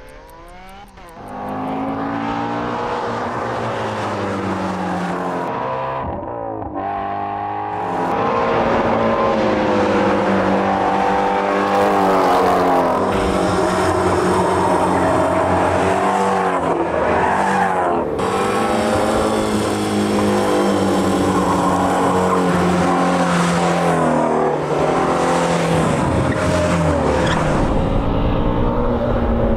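Ford Mustang Shelby GT350R's 5.2-litre flat-plane-crank V8 revving up and running hard under load, with a brief lift off the throttle about six seconds in.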